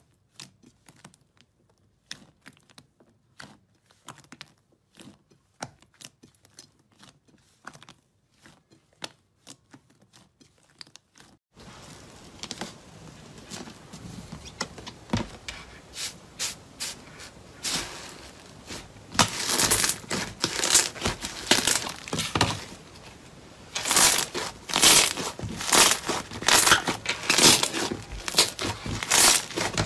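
Hands kneading and squeezing slime, giving sparse, sharp wet pops and clicks. About twelve seconds in, the sound changes to a denser crackle as a rainbow slime is pressed and squished, and the crackling grows loud in the last ten seconds, with a brief lull partway through.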